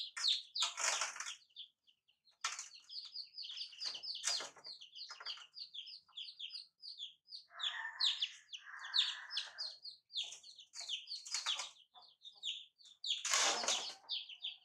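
A brood of young domestic chicks peeping rapidly and continuously, many short high peeps a second. Several short scuffling noises break in, the loudest near the end, with two longer scrapes in the middle.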